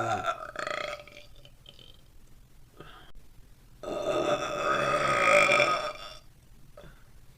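A woman belching: the end of one burp at the start, then one long, loud burp about four seconds in, lasting over two seconds.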